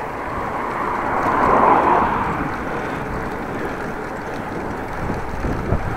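Steady wind and rolling noise from riding a bicycle along the road, swelling for a moment about a second and a half in, then settling back.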